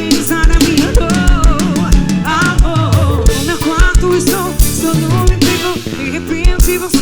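Live band music: drum kit with regular kick-drum hits under sustained chords and a wavering lead melody with vibrato, in a short instrumental passage between sung lines. The recording is somewhat distorted.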